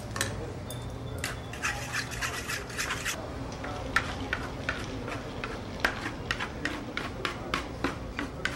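A utensil beating and scraping against a large wooden salad bowl as the Caesar dressing is whisked. It starts as a quick run of clicks and scrapes and turns to sparser, irregular strokes after about three seconds.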